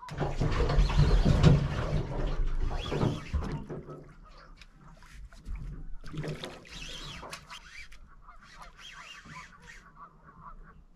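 A hooked striped bass being fought to the side of the boat on a fly rod. A loud rush of noise fills the first few seconds, then the fish splashes at the surface about six seconds in.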